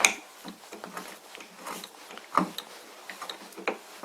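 Irregular metal clicks and scrapes as a tight threaded part is worked along a lathe spindle's damaged thread, with hair-like chips coming off it. The sharpest click is right at the start and others come about two and a half and nearly four seconds in.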